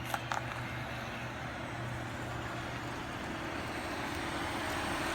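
A car driving: steady road and engine noise, with two short clicks near the start.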